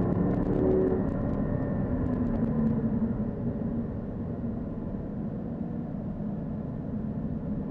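Car engine running as the car is driven, a steady low pitch over a constant rumble of road noise.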